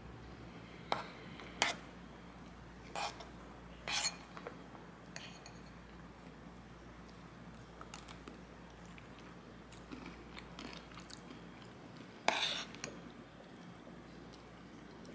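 A metal spoon clinking and scraping against a ceramic bowl as thick yogurt with granola is stirred and scooped, with quiet chewing in between. Four sharp clinks come in the first four seconds and a louder, longer scrape about twelve seconds in.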